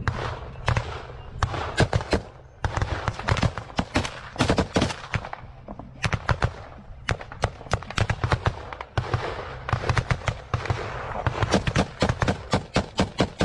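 Heavy gunfire in a firefight: many sharp shots in dense, irregular volleys, some in quick strings like automatic bursts, with brief lulls of a fraction of a second.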